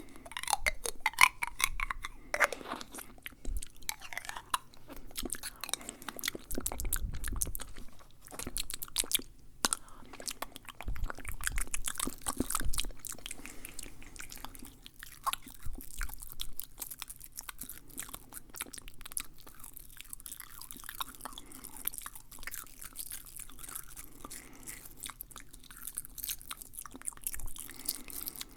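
Fast, wet ASMR mouth sounds close to the microphone: rapid clicks and smacks of lips and tongue, busiest in the first half and thinning out later, with a couple of low thuds.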